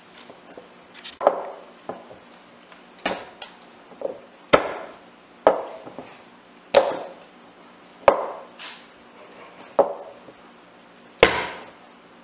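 Hands kneading rice-flour and tapioca-starch dough in a glass mixing bowl: a sharp knock each time the dough is pushed down against the bowl, roughly every second and a half, some strokes doubled with a lighter knock.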